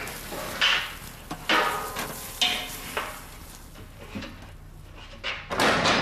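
A fire crackling and hissing, with sharp pops and bursts of hiss about once a second and a longer, louder hiss near the end.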